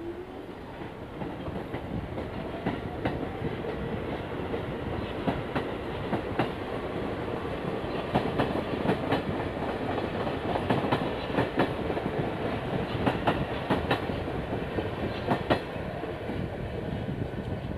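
New York City subway train of R46 cars rolling past on the open-air track, its steel wheels clacking over rail joints in irregular runs of sharp clicks. A faint rising whine near the start comes from the train's motors.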